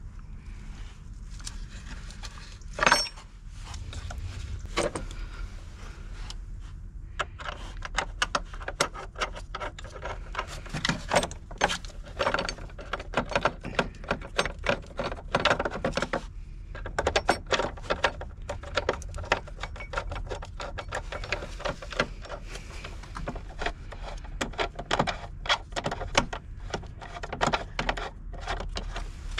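Irregular metallic clicks, knocks and scrapes of hand tools and fittings being worked around a car battery in its tray. There is one sharp knock about three seconds in, and the clicking becomes dense from about a quarter of the way through.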